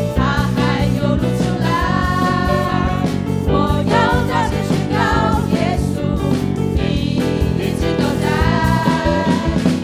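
A worship team of several singers, a woman's voice leading, singing a Mandarin Christian praise song over a live band with drums.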